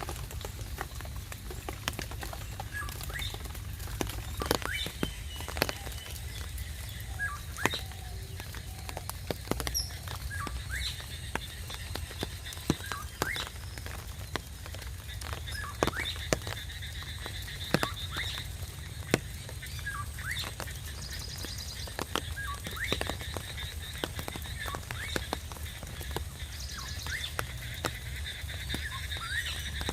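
Rain dripping, with irregular sharp drops striking close by over a low steady rumble. About a third of the way in, a steady high trill joins.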